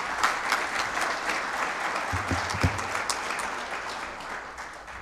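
Audience applauding, many hands clapping at once, fading toward the end, with a few low thuds about two seconds in.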